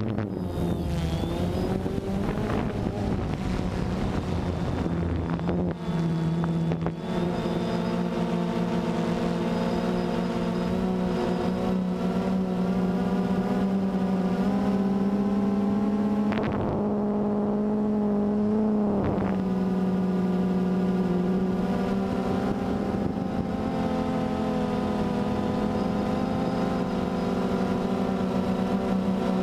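DJI Phantom 2 quadcopter's electric motors and propellers, picked up close by the camera on board, giving a steady buzzing hum that shifts slightly in pitch as the motors change speed, rising a little about halfway through.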